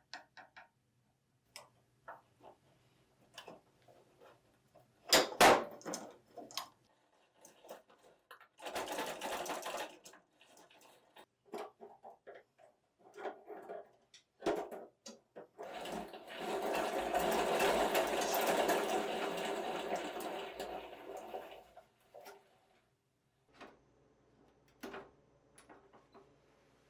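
Workshop reassembly of a steel pedal car: scattered clicks and knocks of parts being handled, a loud clank about five seconds in, and a small power tool buzzing steadily for about six seconds past the middle.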